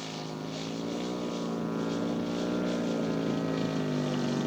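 Radio-controlled model airplane's piston engine running steadily at a low throttle, its pitch wavering slightly and growing a little louder.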